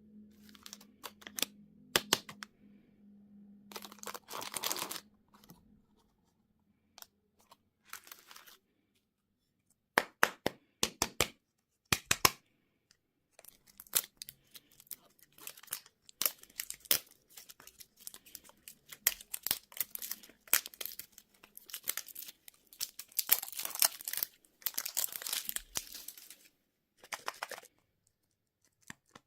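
Candy and surprise-toy packaging crinkling and tearing open, in irregular bursts of crackling with sharp clicks and short pauses between.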